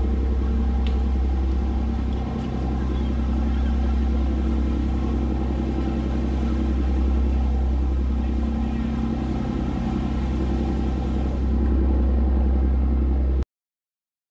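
Fishing boat's engine running steadily underway, a low drone with a constant hum, cutting off suddenly near the end.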